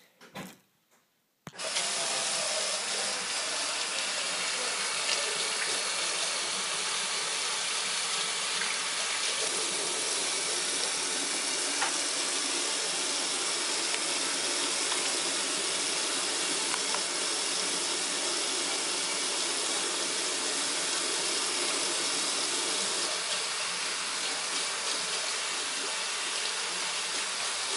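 Kitchen sink faucet running, water streaming onto hands being washed under it: a steady rush of water that starts about a second and a half in.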